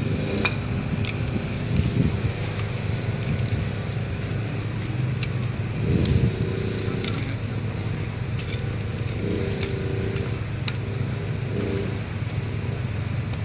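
A steady low engine hum, with a few light metallic clinks and a couple of dull knocks as a steel wire rope is spliced with a marlinspike.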